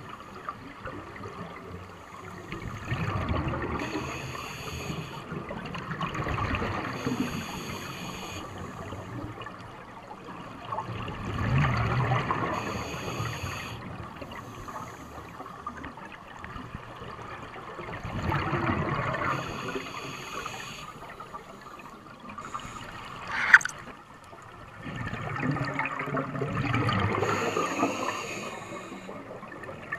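A scuba diver breathing through a regulator underwater, picked up by a camera: exhaled bubbles gurgle in swells about every seven seconds. A single short, sharp sound about two-thirds of the way through is the loudest moment.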